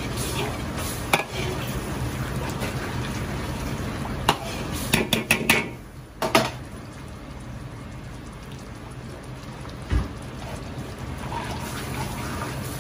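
Long metal ladle clacking and scraping against a large iron wok as it stirs bubbling, sizzling tomato-chili sauce, over a steady rush from the stove burner. The sharp clacks come singly, then in a quick cluster about five seconds in, with one dull knock near the end.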